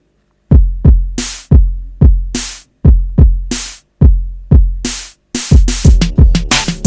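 Instrumental music with a drum-machine beat: deep kick-drum thumps and hissy snare hits. It starts about half a second in, and the pattern gets busier near the end.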